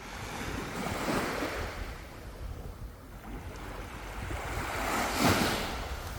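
Sea waves breaking and washing up on a beach: two waves about four seconds apart, the second louder, over a low rumble of wind on the microphone.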